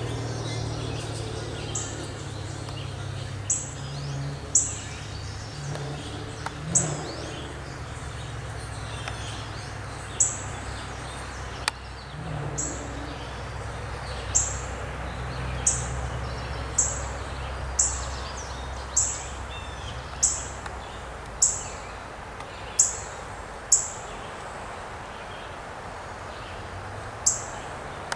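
A bird repeating a short, high-pitched call about once a second, with a pause near the end. Beneath it runs a steady low rumble that fades out about two-thirds of the way through.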